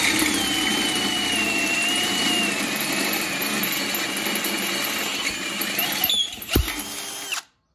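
Cordless drill boring a hole through a metal bumper with a twist bit, a steady cutting drone with a high wavering whine. About six seconds in it eases off with a sharp click, runs on more quietly, and stops just before the end.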